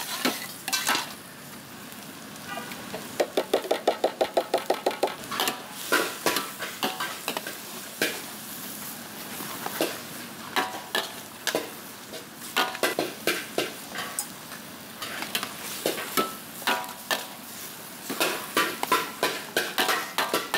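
Two metal ladles scraping and clanking against a steel wok as leafy greens are stir-fried, over a steady sizzle. A few seconds in comes a fast run of ringing clanks, about six a second.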